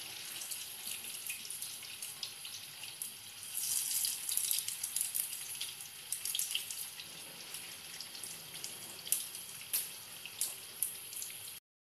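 Rice-and-potato patties shallow-frying in hot oil in a frying pan: a steady sizzle with crackling pops. It gets louder for a couple of seconds about four seconds in, as more patties go into the oil, and stops abruptly near the end.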